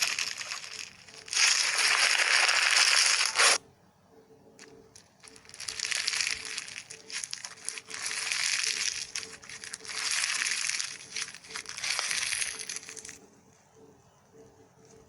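Crushing and crunching noises: two long loud bursts, the second cut off sharply about three and a half seconds in, then after a short pause a run of quieter crunching bursts that stops a couple of seconds before the end.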